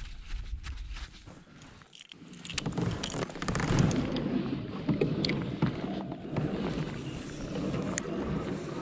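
Wind buffeting the microphone: a low rushing rumble that drops away about two seconds in, then picks up and holds, with a few light clicks.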